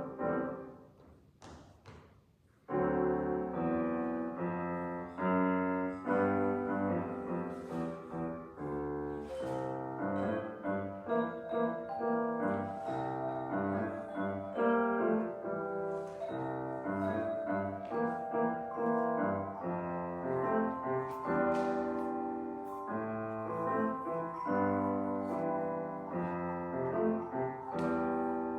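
Tone chimes and piano playing a children's song together. A few soft knocks and quiet notes come first, and the full ensemble comes in about three seconds in.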